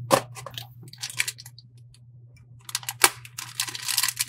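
An X-Acto craft knife slitting a cardboard booster box, with a few sharp clicks and scrapes, then the crinkle of black plastic parts packets being handled and pulled open over the last second and a half.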